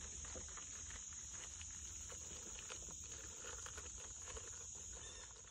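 Steady high-pitched drone of insects in the summer trees, with small clicks and rustles from hands working at fishing tackle close to the microphone and a low rumble underneath.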